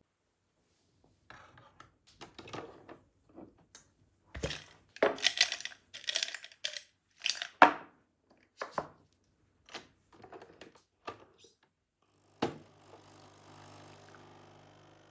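Objects being handled: irregular rustling, crinkling and clattering. Then a sharp click or knock, after which a small appliance starts a steady low hum.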